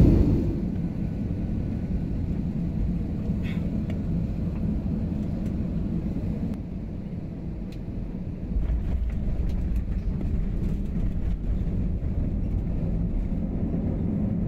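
Airliner cabin noise on the landing roll: a steady low rumble from the engines and the wheels on the runway, stepping up a little about eight and a half seconds in, with a few faint ticks and rattles.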